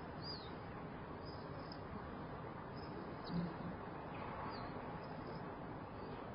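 Quiet room tone through an open balcony door: a steady, faint hush of city ambience, with faint bird chirps now and then and a brief low bump about three and a half seconds in.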